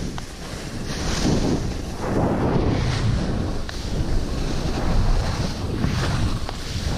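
Wind rushing over a body-worn action camera's microphone while a snowboard slides down a snow slope; the rushing noise swells and eases every second or so.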